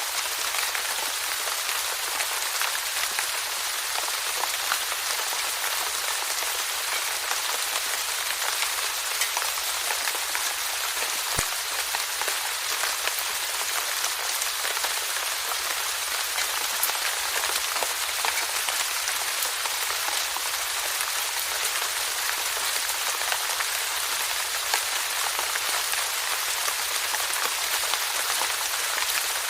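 Steady rainfall: an even hiss of falling rain with many small drops pattering.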